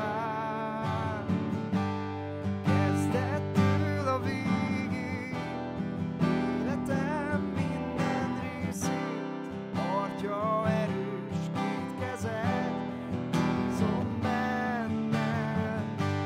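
Acoustic guitar strummed in a steady rhythm, with a man's voice singing a slow worship song over it.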